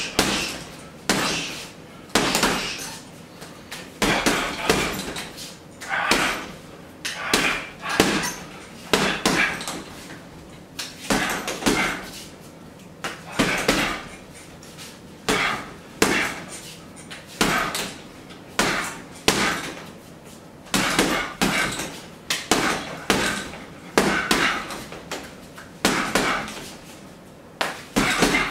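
Boxing gloves punching a hanging heavy bag in quick combinations of two to four blows, the bursts coming every second or two.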